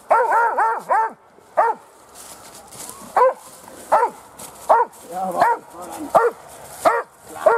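Dobermann barking over and over in short, sharp barks. A quick run of four comes at the start, then a lone bark, then a steady rhythm of about one bark every three-quarters of a second. This is a protection-sport dog guarding the helper after being called off the bite.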